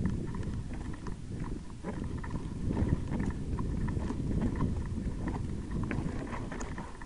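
Mountain bike jolting slowly down a path of loose stone slabs: the tyres knock and crunch over the rocks and the bike rattles in short irregular clicks, over a steady low rumble.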